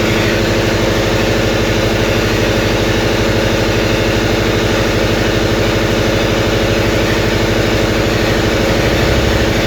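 A motor running steadily, a constant drone with a fast, even pulse.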